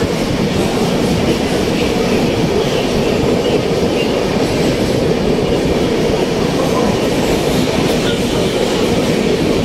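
Express train running at speed, heard from an open coach doorway: a steady, loud noise of the wheels running on the rails.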